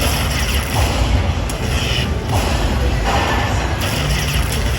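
Lightning Link Magic Pearl slot machine playing its game music and effects over a steady, loud casino floor din.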